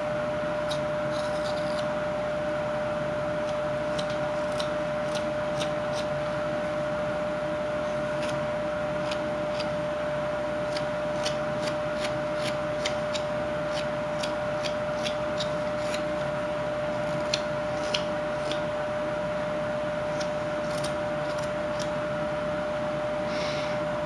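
Whittling knife paring chips off a small wooden block in dozens of short, irregular cuts. A steady hum runs underneath.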